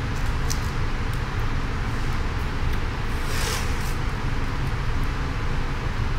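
Blue painter's tape pulled off a plexiglass printing plate: one short rasping tear about halfway through, with a few faint ticks of handling. A steady low background rumble runs under it.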